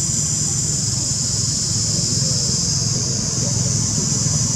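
Steady outdoor drone of insects, high-pitched and unbroken, over a low steady engine hum, with faint distant voices.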